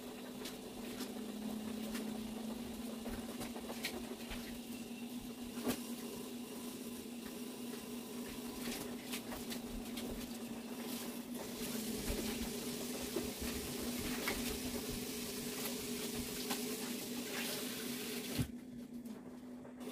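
Kitchen work sounds: light clicks and knocks of utensils over a steady low hum, with a louder knock near the end.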